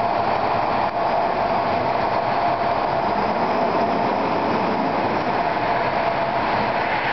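Fire engine's diesel engine running as the truck rolls out of the station bay: a steady mechanical noise with a constant mid-pitched hum.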